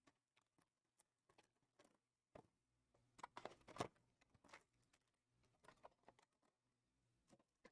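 Faint crinkling of a foil trading-card pack being torn open, and light clicks of the cards being handled. The crackles come thickest a little past the middle.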